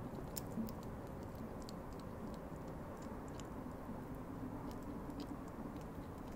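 European hedgehog chewing dry food pellets close up: a run of small, irregular crunching clicks over a steady low background noise.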